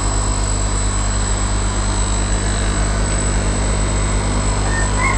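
Steady hum of the electric air-pump motors that aerate the fish tanks, running continuously.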